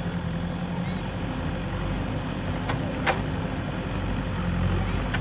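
Diesel engine of a JCB 3DX backhoe loader running steadily at low revs, with a single sharp knock about three seconds in.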